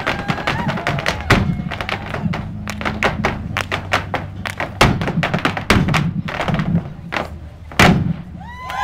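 Irish dance hard shoes striking a stage floor in fast rhythmic footwork, many sharp taps and stamps over quieter music, ending with one loud stamp near the end.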